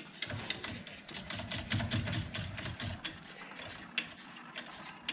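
Rapid, irregular mechanical clicking and rattling of metal parts on a milling machine setup with a rotary table.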